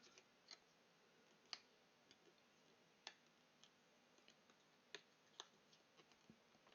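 Faint, irregular small clicks and taps, about a dozen spread over several seconds, over near silence.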